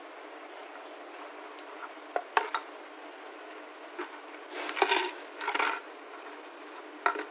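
Empty plastic drink bottle holding dry cat treats, pushed and rolled on a hard floor by a cat. It makes a few sharp knocks about two seconds in, a short clattering run around five seconds, and a final knock near the end.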